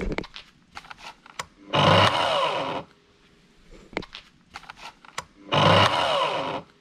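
Mafell plunge-cut track saw on its guide rail, run in two bursts of about a second each, with clicks and knocks from handling the saw in between.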